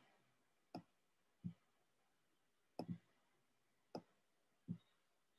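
Computer mouse clicking, about five single clicks spaced irregularly roughly a second apart, against near silence.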